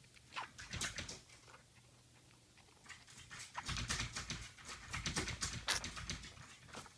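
Shih Tzu puppy suckling from a nursing bottle's nipple: quick, wet smacking and clicking sounds in two runs, a short one near the start and a longer, denser one from about three seconds in.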